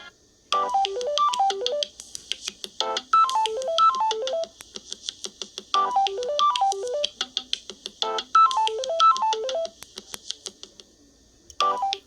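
Samsung Galaxy A21s ringtone (One UI 4.1) playing: a short phrase of quick notes stepping down and back up over a fast, steady ticking beat, repeated several times. It pauses near the end, then starts again just as the clip ends.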